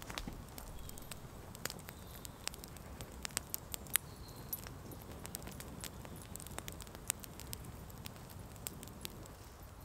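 Open wood campfire crackling, with irregular sharp pops and snaps scattered through, the loudest about four seconds in.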